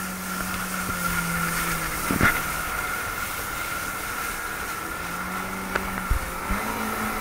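Personal watercraft (jet ski) engine running steadily under way, with the hiss of spray and rushing water. The engine note steps up slightly near the end, and a couple of brief knocks cut through, the clearest about two seconds in.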